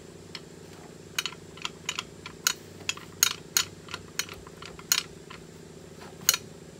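Irregular sharp metallic clicks and taps from handling a porta power hydraulic hand pump: its handle being worked and its fittings knocked, here to let the pressure off the ram. A faint steady hum runs underneath.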